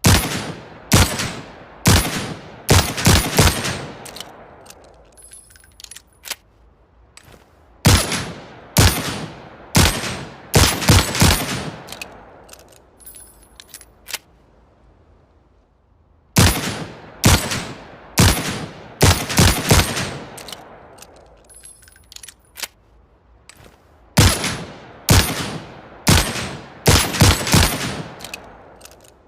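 Manurhin MR-73 .357 Magnum revolver fired in four quick strings of about six shots each, every shot followed by a long echoing tail. Fainter clicks come in the pauses between strings.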